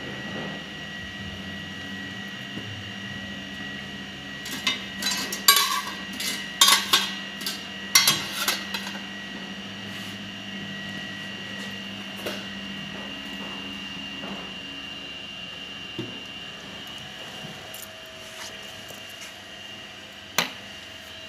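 Metal clinking and clattering as the stainless steel shelves and rack are lifted out of a benchtop lab freeze dryer, in a burst of knocks in the middle. Underneath, the running freeze dryer gives a steady hum with a high whine. Near the end comes one sharp click of its rocker switch.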